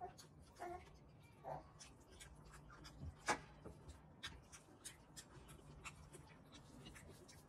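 Faint eating sounds: chewing and lip smacks, with fingers squelching through curry and rice on a plate. It is a run of short, sharp clicks, the loudest about three seconds in.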